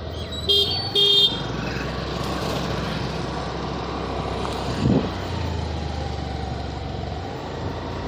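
Riding on a two-wheeler in town traffic: steady engine and road noise with wind on the microphone. A horn toots twice, briefly, in the first second and a half, and there is a short thump about five seconds in.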